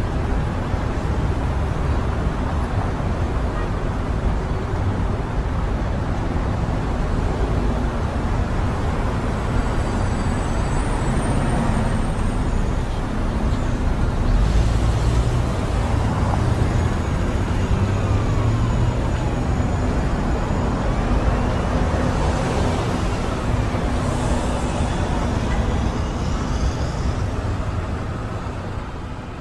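Street ambience: a steady rumble of traffic and road noise, fading out near the end.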